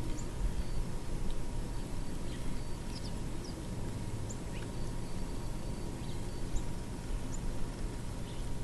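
Faint, scattered short chirps of small birds, about ten over the span, over a low steady background hum.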